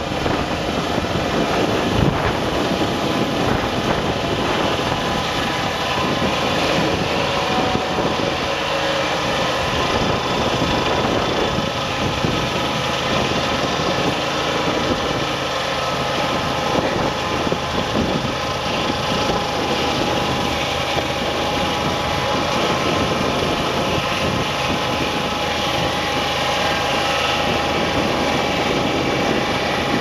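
Rimu portable sawmill driven by a 27 hp twin-cylinder Kohler petrol engine, running steadily under load while the saw cuts through a cypress macrocarpa log.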